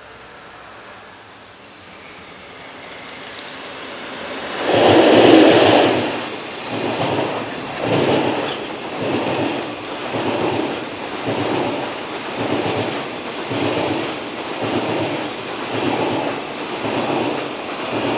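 DD51 diesel locomotive approaching and passing close, loudest about five seconds in, followed by a train of Chiki flat wagons rolling by with an even clickety-clack of wheels over the rail joints, about one beat a second.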